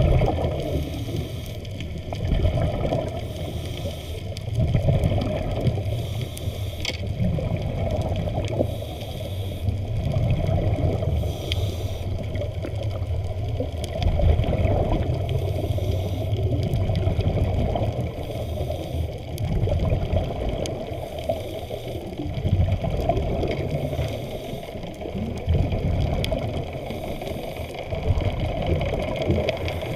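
Underwater sound of moving water: a muffled low rumble that swells and fades every couple of seconds, with scattered faint clicks.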